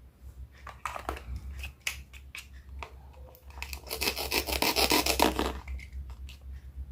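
Knife cutting fruit or vegetables on a cutting board: a few sharp taps and small cuts, then about four seconds in a longer, louder scraping cut lasting nearly two seconds.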